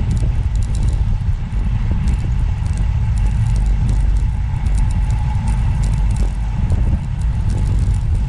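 Steady low rumble of travel noise, wind and road, with faint scattered ticks above it.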